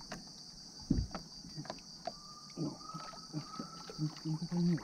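Quiet water sloshing and small knocks around a person wading chest-deep beside a kayak, with a faint thin whistle in the middle and a short low hum, repeated about three times, near the end.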